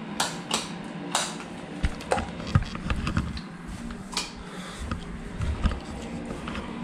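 Handling noise: a string of light, irregular clicks and knocks, about a dozen, with some rustling, over a low steady hum.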